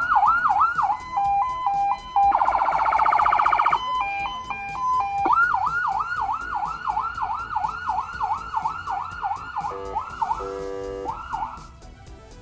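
Electronic police siren on yelp, a fast rising-and-falling wail about three times a second. About two seconds in it breaks into a few short steady tones and a loud buzzing horn tone, then yelps again and cuts off near the end.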